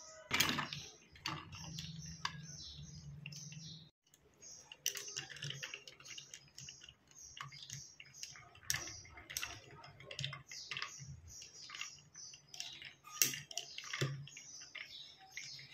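Close-up art-making sounds: a run of light taps, clicks and short scratchy strokes of painting tools on paper and palette, with an abrupt cut about four seconds in.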